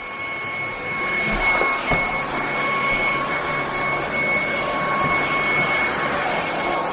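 ZIENNOQ 265 W cordless stick vacuum cleaner running: a steady motor whoosh with a thin, high, steady whine over it.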